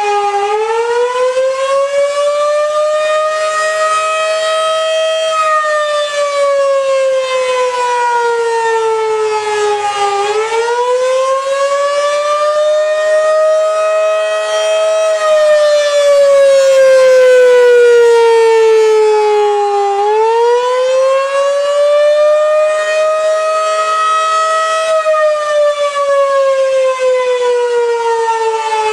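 Federal Signal outdoor warning siren sounding the wailing attack signal. Its pitch climbs for about five seconds and sinks for about five, over and over in an even rise and fall.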